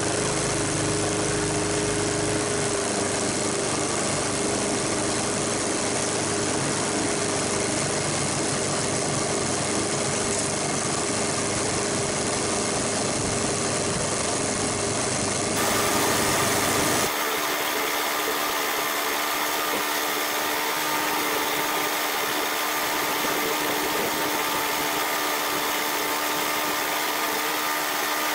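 Small four-stroke Briggs & Stratton Classic engine on a walk-behind lawn mower running steadily while cutting grass, its crankcase filled with peanut oil instead of motor oil. The tone shifts abruptly a little past halfway.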